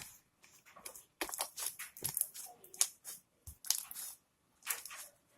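Slime being squeezed and worked by hand, the air bubbles trapped in it popping and crackling in several short runs of sharp crackles with brief pauses between.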